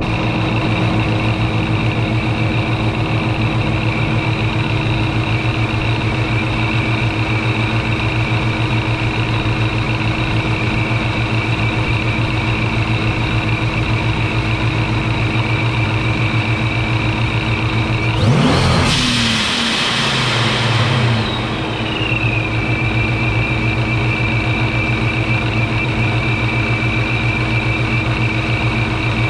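Procharged 6.6-litre stroker V8 of a 2009 Dodge Challenger SRT8 idling with a choppy, pulsing beat from its blower cam, over a steady high whine. About 18 seconds in it is blipped once in a short rev, then settles back to idle as the whine glides down.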